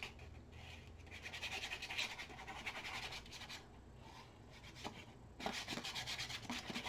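Faint rubbing and rustling of scrapbook paper being handled and slid into line against another sheet. It comes in two stretches, with a few light clicks between.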